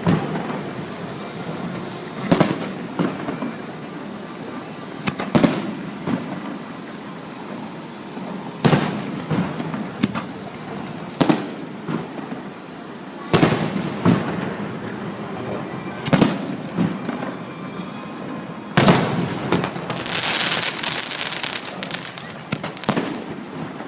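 Fireworks shells bursting in sharp bangs every couple of seconds, each followed by a lingering rumble, with a run of crackling about twenty seconds in.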